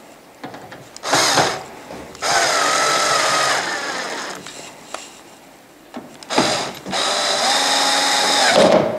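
Cordless drill with a Phillips bit driving screws: two runs, each a short burst followed by a steady motor whine of about two seconds whose pitch drops as the screw draws tight.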